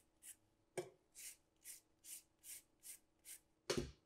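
Handheld rasp zester (OXO) scraping the peel of a Meyer lemon in short, faint strokes, about two a second, with a louder knock near the end.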